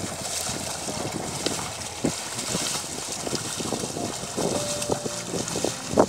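A pair of oxen and a plough sloshing and splashing through a flooded, muddy paddy field, with irregular wet thuds of hooves in the mud. Wind buffets the microphone.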